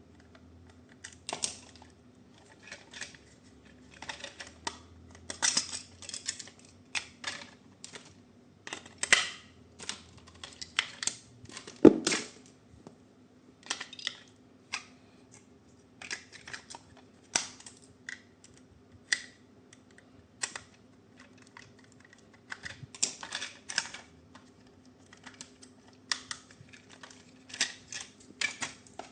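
Irregular clicks, taps and brief rustles of hands handling plastic toy parts and packaging, with one louder knock about twelve seconds in, over a faint steady hum.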